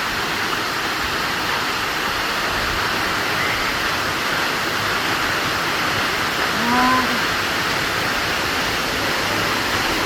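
Waterfall water falling in a steady, even rush, with a short voice sound about seven seconds in.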